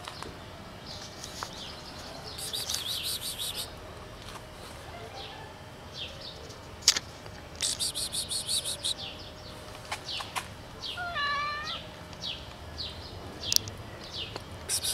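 Birds chirping throughout, with three bursts of rapid high trilling. About eleven seconds in, a cat gives one short meow, and there are two sharp clicks.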